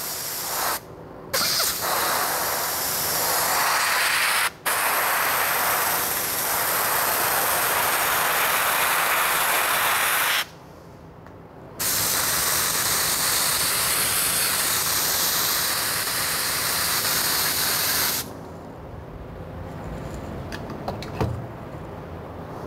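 Compressed-air siphon-feed cup spray gun spraying contact adhesive, a steady hiss in long bursts with brief breaks about a second in, around four and a half seconds, and for about a second near the middle. The spraying stops about eighteen seconds in, leaving quieter sound with a few light knocks.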